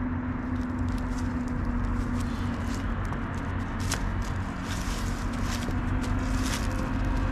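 A steady low rumble with a constant hum, the drone of construction drilling machinery running nearby, with a few light clicks and rustles over it; one click stands out about four seconds in.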